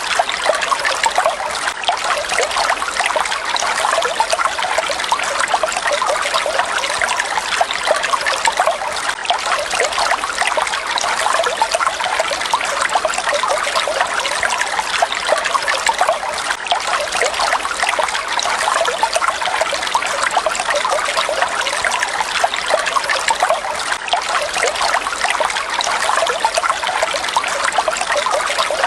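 Falling water splashing and trickling steadily, an even, unbroken splashing.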